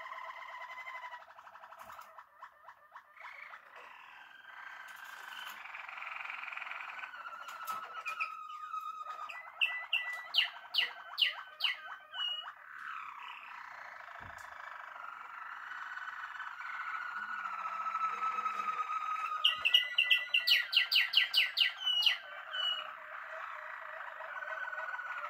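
Canaries singing continuously in long rolling trills and warbles. Twice, about ten seconds in and again about twenty seconds in, the song breaks into a loud run of rapidly repeated sharp notes.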